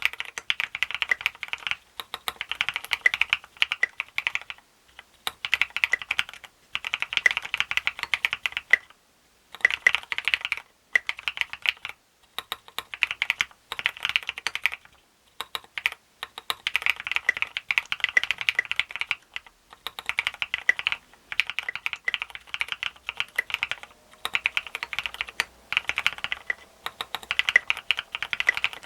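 Duck Eagle v3 mechanical keyboard being typed on: retooled Cherry MX Black switches in a plastic plate, top-mounted, under SA-profile keycaps. The keys clack in quick runs of one to three seconds, broken by short pauses.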